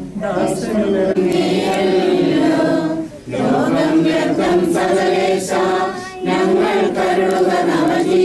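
A group of voices singing a Malayalam funeral hymn together, in long held phrases with brief breaks for breath about every three seconds.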